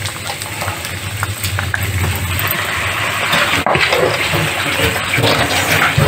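A steady rushing noise with a low hum underneath, growing slightly louder after about two seconds.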